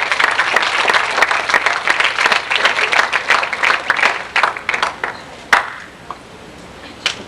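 Audience applauding, dense clapping that thins out and dies away about five seconds in, with a few last single claps near the end.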